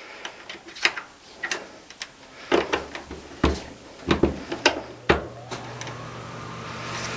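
Dillon Super Swage 600 primer-pocket swaging tool being worked by hand: a series of sharp clicks and knocks as a crimped 5.56 military brass case is seated on the support rod, folded into the cradle and the lever pulled down. The stroke swages out the primer pocket crimp.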